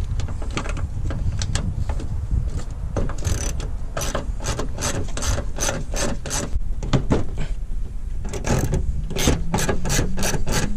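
Hand socket ratchet clicking as a bolt is turned, in quick runs of sharp clicks that come sparse at first and thicker from about four seconds in.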